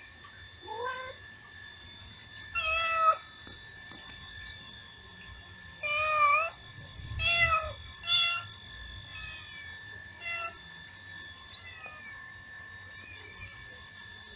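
Domestic cat meowing repeatedly: about six clear meows with fainter ones between, some rising in pitch. A steady faint high tone runs underneath.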